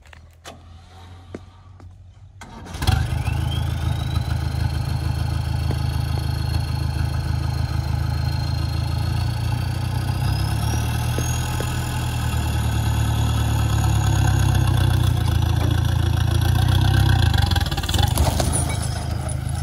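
Mahindra Bolero pickup's diesel engine revving up hard under load about three seconds in and running loud and steady as the truck strains against a rope tied to a tree stump, with a high whine that climbs in pitch partway through. The load eases near the end as the stump tears free.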